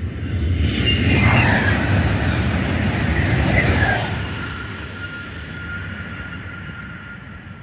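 Renfe Class 130 Alvia (Talgo 250) electric train passing at speed on a high-speed line: a rushing swell that peaks about a second in, holds for three seconds and then eases. A thin steady whistle lingers as it recedes.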